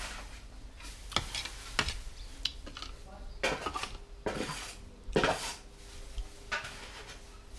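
Metal spoon and fork clinking and scraping against ceramic plates and a soup bowl while eating, about seven separate clinks spread over several seconds.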